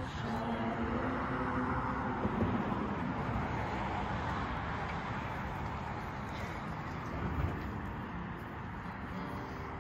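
Traffic on the street: a rush of car noise that swells and slowly fades as a car passes, under the last notes of group singing that end about two seconds in.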